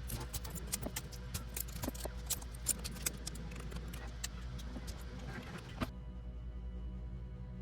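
Rapid, irregular clicking and light rattling of small hard objects being handled, stopping abruptly about six seconds in, over a low steady music drone.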